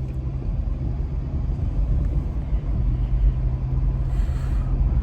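Steady low rumble and constant hum of a running vehicle.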